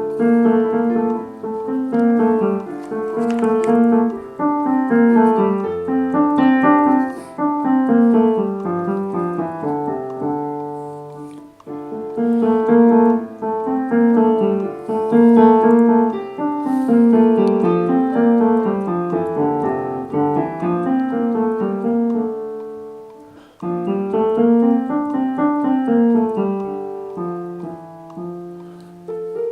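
Piano playing a choral part as a rehearsal track: steady note-by-note lines over held notes, in phrases that break off briefly about eleven and twenty-three seconds in.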